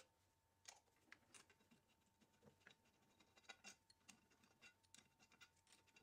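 Near silence with about a dozen faint, irregular small clicks and scrapes of hand tools working on a metal lathe's gearbox cover plate, as it is unbolted for removal.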